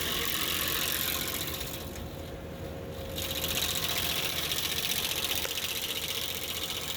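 Skid steer running a hydraulic stump grinder attachment, a steady loud machine noise with a lot of hiss. It eases off for about a second around two seconds in, then picks back up.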